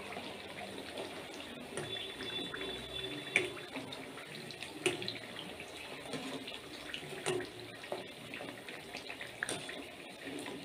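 Thattai deep-frying in hot oil in a steel kadai, near the end of frying: a steady sizzle of bubbling oil, with a few light clinks of a wire spider strainer against the pan and the crackers as they are moved and turned.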